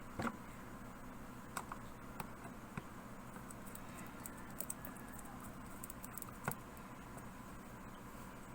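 Scattered light clicks and taps of small screws and a screwdriver being handled against a laptop's plastic bottom case, the loudest just after the start and about six and a half seconds in.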